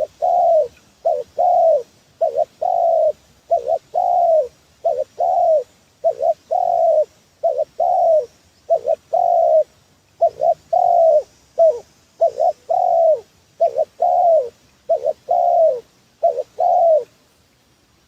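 Spotted dove cooing over and over in a lure call: regular phrases of short and longer coos that stop about a second before the end.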